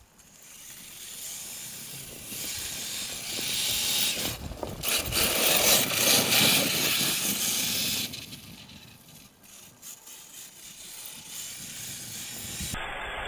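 HPI Savage Flux RC monster truck driving on snow: its brushless electric motor whines and its tyres churn through the snow with a hiss. It grows louder as the truck comes close, is loudest around the middle, and drops off sharply after about eight seconds as it moves away.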